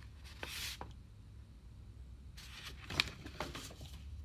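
Soft rustling and handling of a paper picture book as it is lowered and its page is handled, with a sharp click about three seconds in.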